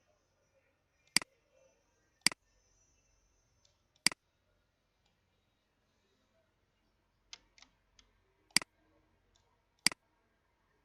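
Computer mouse clicking: about five sharp clicks at uneven intervals, with a few fainter clicks between them.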